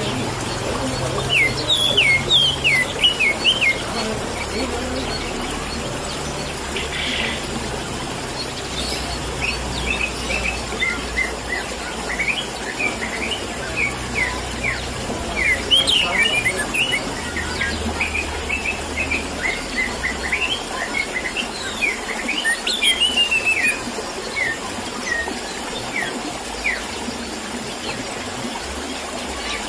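Orange-headed thrush (anis merah) singing runs of quick, high chirping notes with short pauses between phrases, over a steady background of trickling water.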